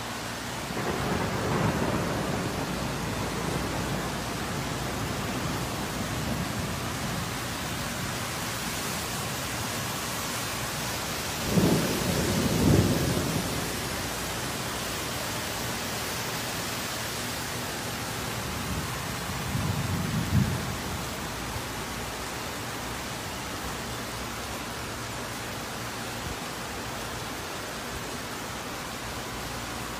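Heavy rain falling steadily, with three low rumbles of thunder: a longer one about two seconds in, the loudest around twelve seconds, and a short one around twenty seconds.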